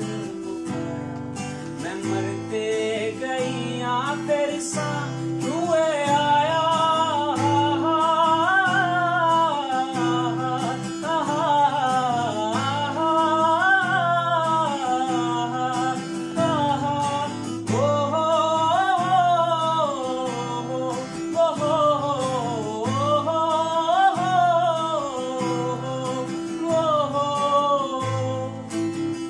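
Acoustic guitar strumming chords, with a man singing a wavering melody in long phrases over it from about four seconds in.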